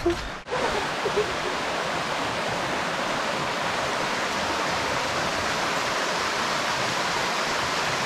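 Shallow stream running over stones, a steady, even rush of water.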